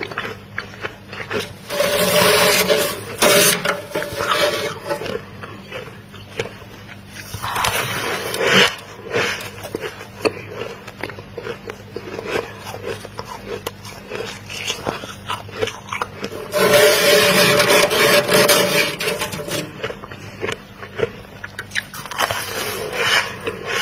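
Metal spoon scraping and crunching thick freezer frost, a steady run of small crackly clicks broken by four longer, louder scrapes of one to three seconds each.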